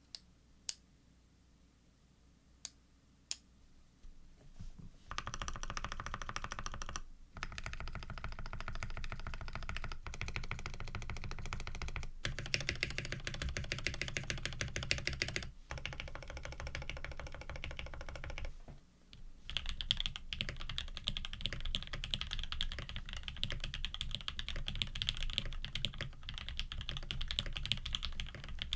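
Typing on a Frog TKL custom mechanical keyboard with an aluminium plate, lubed Tangerine linear switches and GMK keycaps. A few single key presses come first, then fast continuous typing starts about five seconds in, with a brief pause about two-thirds through.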